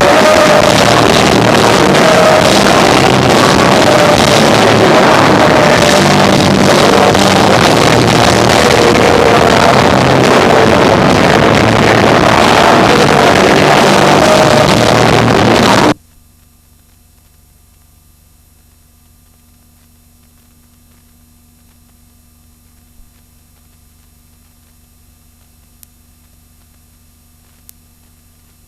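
Live rock band of electric guitar, bass guitar and drums playing loud, with the recording heavily overloaded and distorted. The music cuts off abruptly about halfway through, leaving only a faint steady hum with a few small clicks.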